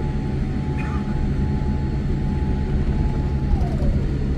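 Jet airliner heard from inside the cabin during the landing rollout: a steady low rumble from the engines and wheels on the runway, with a whine that slides down in pitch near the end.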